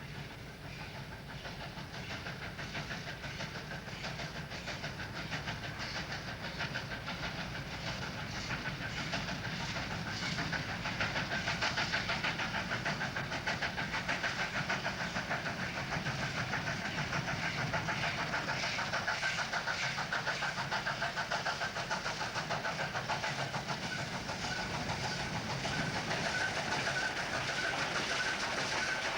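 J 549 steam locomotive running on its running-in trials after a rebuild, with a fast, even rhythmic beat. It grows louder over the first ten seconds or so, then holds steady.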